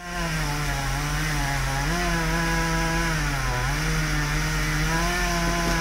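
Two-stroke chainsaw running steadily while cutting pine, its pitch dipping and rising a couple of times, about two seconds and three and a half seconds in.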